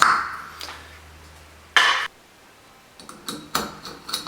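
Clinks and taps of a shower valve handle being handled and fitted onto its stem: a sharp clink with a brief ring at the start, a short scrape about two seconds in, then a few lighter taps near the end.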